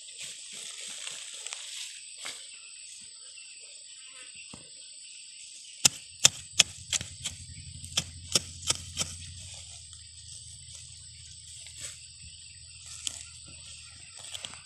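A small hand hoe striking and chopping into soil, about ten sharp strikes in quick succession from about six seconds in. It is pulling earth up around the base of a plant.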